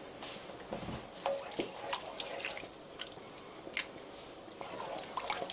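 Wooden spoon stirring a thin tomato sauce in a deep frying pan: irregular wet splashes and light clicks of the spoon in the liquid.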